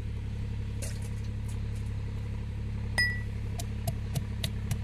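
Green chillies being pounded in a hamandista, a metal mortar and pestle: one clink with a brief metallic ring about three seconds in, then a quick run of light knocks, about four a second, over a steady low hum.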